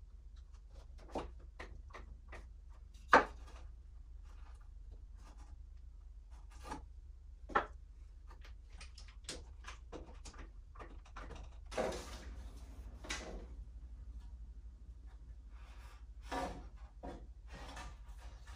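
Scattered knocks and clunks of 2x4 lumber being handled and fitted into a wooden frame, with a sharp knock about three seconds in and a longer scraping of wood on wood around twelve seconds, over a low steady hum.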